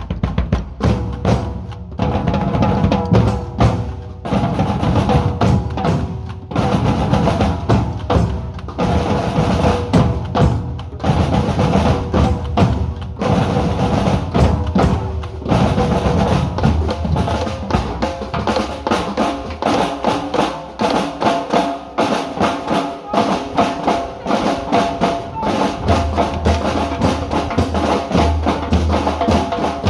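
A group of drummers playing a rhythm together on drums, with dense continuous hits and a deep bass drum underneath.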